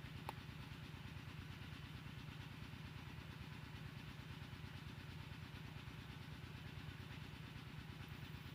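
A small engine idling steadily, a faint low throb with an even rapid pulse.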